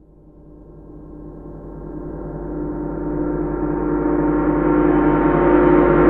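Intro sting: a sustained ringing swell of many layered steady tones, growing steadily louder and brighter.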